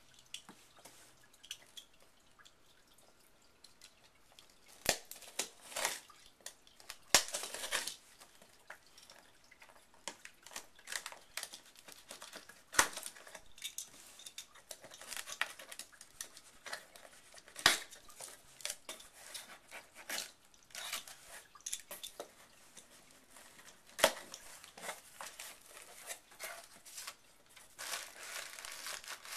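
Packaging being handled and opened: crinkling and tearing, broken by sharp clicks and knocks scattered throughout.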